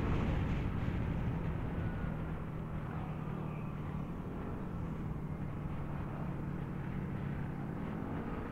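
Motor scooter engine running at a steady cruise, with wind rumble on the microphone. The engine eases off slightly in the first couple of seconds, then holds a steady note.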